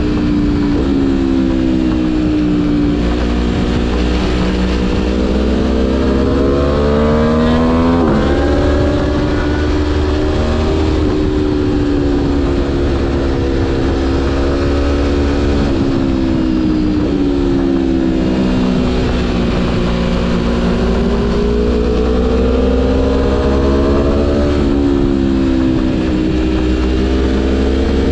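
Aprilia Tuono V4 1100 Factory's V4 engine under way, its pitch climbing and falling several times as the rider accelerates and backs off through the corners. A steady low rush of wind on the microphone runs underneath.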